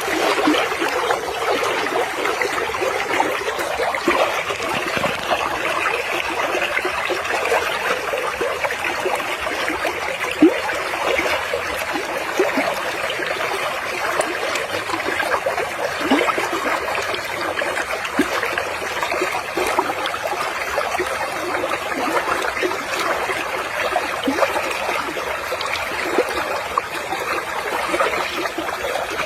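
Running water trickling and flowing steadily.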